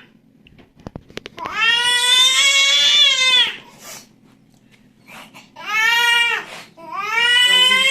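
An infant crying in loud wails: three cries, the first about two seconds long and the next two about a second each. A few short taps sound about a second in.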